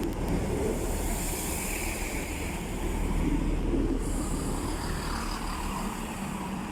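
Class 165 diesel multiple unit at a station platform, its diesel engines running as it slows or stands, the sound easing down gradually with a steady low hum underneath.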